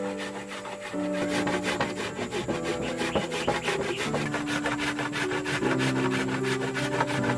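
Cassava root being grated by hand on a flat metal grater: a quick, even run of scraping strokes, starting about a second in.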